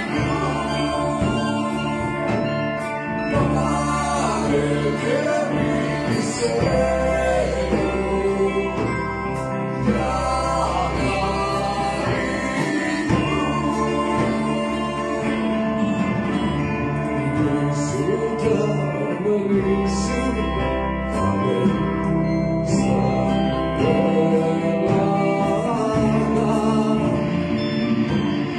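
Live rock band playing a song, with a man singing the melody over electric guitars and a drum kit.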